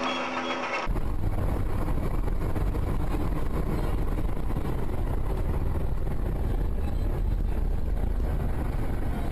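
Steady low road and engine rumble of a moving car as picked up by a dashcam, starting abruptly about a second in.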